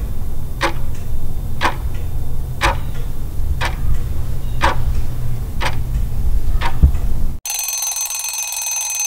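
Countdown clock-tick sound effect, one tick a second over a steady low hum. About seven and a half seconds in it cuts off suddenly and an alarm-clock ring takes over, signalling that the time is up.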